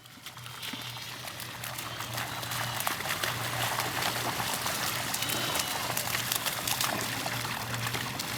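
Shallow rainwater splashing and sloshing as dogs wade and play through it: an uneven patter of small splashes that grows louder over the first few seconds, with a faint steady low hum underneath.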